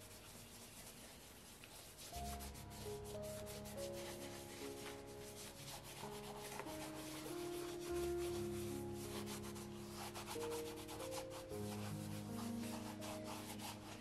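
Fast rubbing strokes on a leather shoe as Bick 4 leather conditioner is worked into it. Soft background music with held notes comes in about two seconds in.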